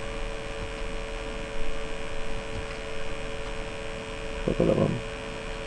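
Steady electrical hum with a constant tone over a low hiss, broken briefly by a short sound a little over four seconds in.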